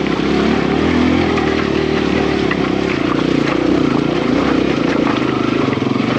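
Kawasaki KLX140RF dirt bike's single-cylinder four-stroke engine chugging at low revs in a low gear, its pitch wavering as the throttle is worked, while crawling over loose boulders. Scattered knocks and clatters come from the bike and tyres striking rocks.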